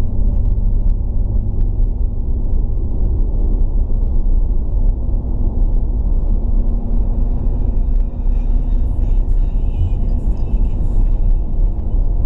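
Steady low rumble of engine and tyre noise inside a moving car's cabin while driving.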